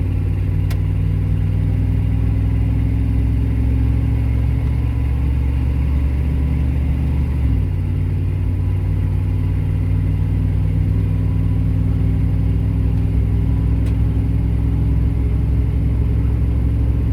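Chevy 454 big-block V8 truck engine pulling under way, with a steady note that steps abruptly to a new pitch about seven and a half seconds in. The engine has a freshly fitted coil and distributor.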